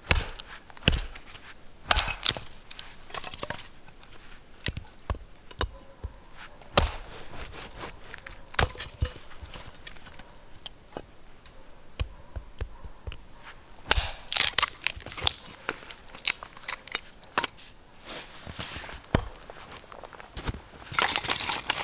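Hatchet splitting firewood into kindling on a chopping block: irregular sharp chopping blows, some in quick runs, with the wood cracking apart. Near the end, footsteps crunch in snow.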